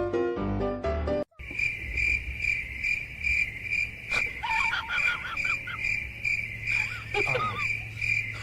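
Piano music cuts off about a second in, then a cricket chirps steadily, about two to three chirps a second. Short warbling whistles come in twice over the chirping.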